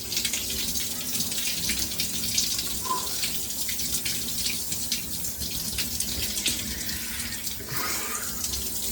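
Shower running, water spraying and splashing steadily.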